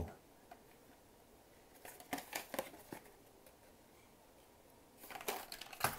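Handling noise from a boxed Hot Wheels die-cast car: short runs of plastic packaging clicking and crinkling, about two seconds in and again near the end.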